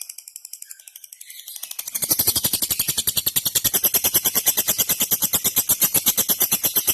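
Lovebird ngekek: a long unbroken chattering trill of sharp chirps, about a dozen a second. It starts about two seconds in after softer chirping and keeps going without a break.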